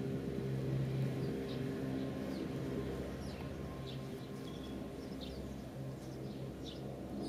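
Small birds chirping now and then, in short high calls, over a steady low hum like a distant motor.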